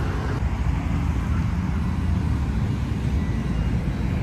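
Steady low rumble of city street ambience with road traffic.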